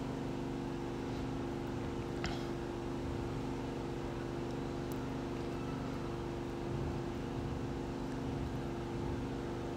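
Steady mechanical hum holding a few low tones, with one faint click about two seconds in.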